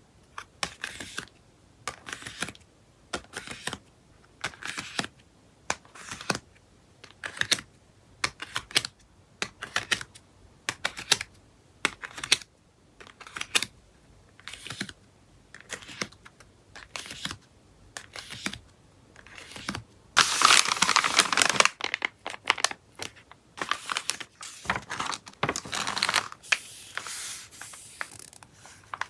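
Plastic and paper packaging being handled while photocards are packed: short crinkling rustles about once a second, a longer, louder crinkle about twenty seconds in, and busier rustling near the end.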